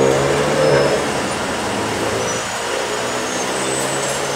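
A motor vehicle's engine running steadily, a low hum over a wash of noise.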